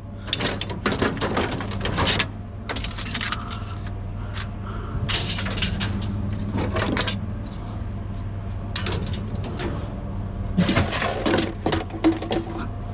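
Pieces of scrap metal being handled and sorted, clinking and rattling in several short clusters, over a steady low hum.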